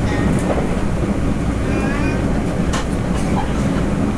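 Inside the cabin of a TEMU1000 Taroko Express tilting electric train running at speed: a steady low rumble of wheels on the rails and car body, with a few sharp clicks a little under three seconds in.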